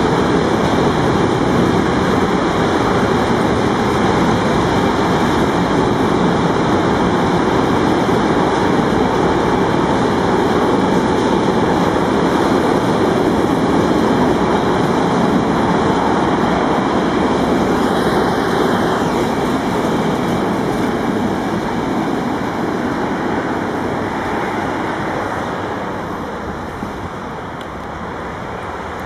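Container freight train of flat wagons rolling past, a steady noise of wheels on rails that fades over the last several seconds as the end of the train draws away.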